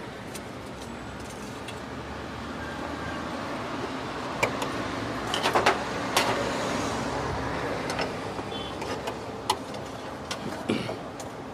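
Knife clicking and scraping on bread slices and a wooden board as green chutney is spread for sandwiches: scattered short clicks and knocks, bunched in the middle and again near the end, over a steady hum of road traffic.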